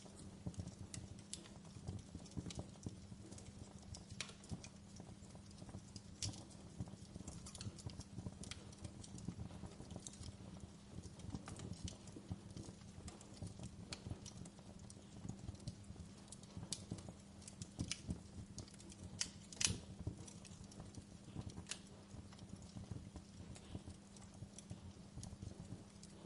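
Fire crackling with irregular pops and snaps, the loudest about three-quarters of the way in, over a steady low hum.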